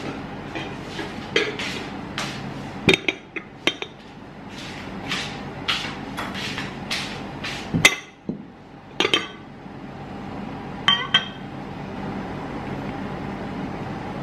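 Tableware clinking as a ceramic plate and a white casserole dish with a glass lid are set down on a woven placemat and handled: several sharp clinks over a few seconds, the loudest about eight seconds in, and a ringing clink of glass about eleven seconds in.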